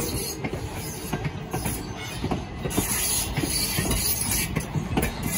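Railroad passenger coaches rolling past, their steel wheels clicking and knocking irregularly over the track over a steady rumble.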